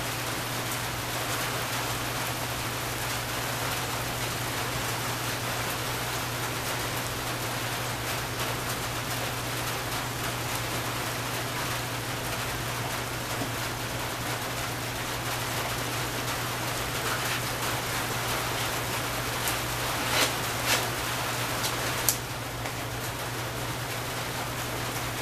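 Steady, even hiss with a constant low hum underneath, and a few short sharper sounds about twenty seconds in.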